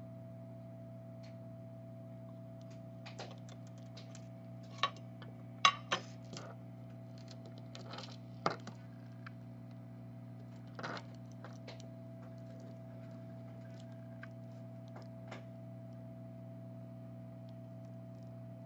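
Small scattered clicks and taps of metal tools against a phone circuit board as old solder is wicked off the charging-port pads, over a steady electrical hum. The clicks come mostly in the first half, the loudest about six seconds in.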